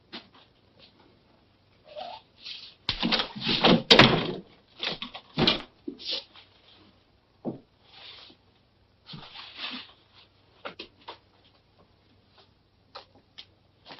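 Rustling and shuffling of a man moving about a room and stooping low, with knocks. The loudest cluster is about three to four seconds in, and a few sharp clicks from a door come near the end.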